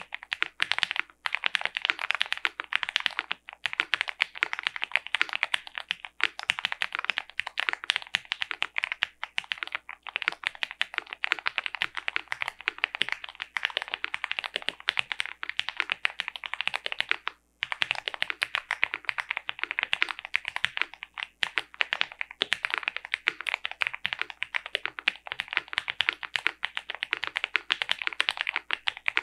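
Fast, continuous typing on an Owlab Mr. Suit custom mechanical keyboard with lubed Gateron Box Ink Black linear switches, a POM plate and GMK keycaps: a dense stream of keystroke clacks with a few brief pauses, one of them about halfway through.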